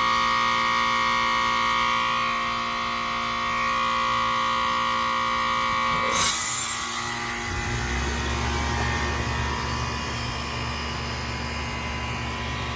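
1980s York Stellar heat pump outdoor unit ending a defrost cycle: the compressor runs with a steady high-pitched whine, a sharp whoosh sounds about six seconds in as the reversing valve shifts back, and a low hum starts soon after as the outdoor fan comes on.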